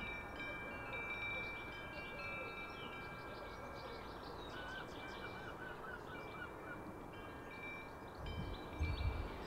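Wind chimes ringing, several long metal tones starting at different moments and overlapping.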